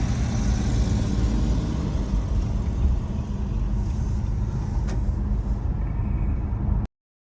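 Car driving on the road: a steady, loud, low rumble of engine and road noise that cuts off abruptly near the end.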